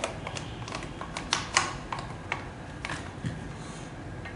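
Irregular clicks and metal taps from the mug-press attachment of a combo heat press as a mug heating element is handled and fitted, with the two loudest knocks a little over a second in.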